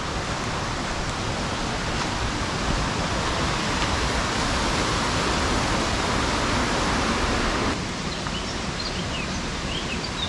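Steady rush of falling water from a small waterfall. It drops suddenly in level about three-quarters of the way through.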